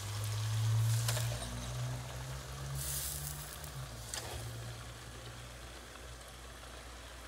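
Faint sizzling from a pot of tomato-and-onion sauce on a gas burner as whole fish are laid into it by hand, with a few soft knocks and a low steady hum that fades after the first couple of seconds.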